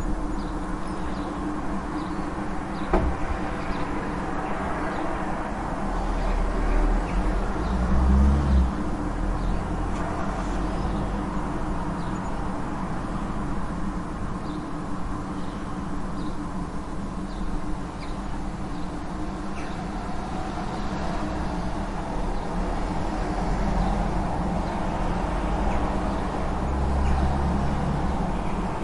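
Street traffic ambience: a steady rumble of vehicles with cars passing by, the loudest about eight seconds in and again near the end, and faint bird chirps scattered through it. A single sharp click about three seconds in.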